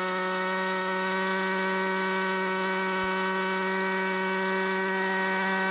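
A steady buzzing hum held at one unchanging pitch throughout, with a faint click about three seconds in.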